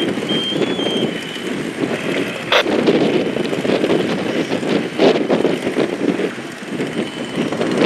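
Strong wind buffeting the microphone, with two sharp knocks about two and a half and five seconds in.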